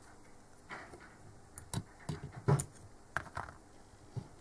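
Hands handling parts at a bench drill stand's chuck: a scatter of small clicks and knocks, loudest about two and a half seconds in.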